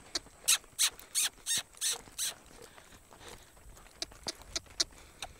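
A horse loping on soft arena dirt: a run of short, rhythmic swishing beats, about three a second, for the first couple of seconds, then fainter ticks.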